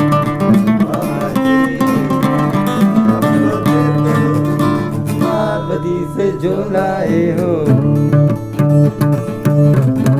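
Two acoustic guitars strumming and picking a song together.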